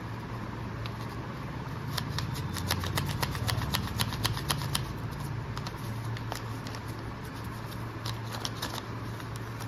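Paper origami flapping bird being flapped by hand: its paper wings and body crackle in quick irregular clicks, densest in the middle, over a steady low hum.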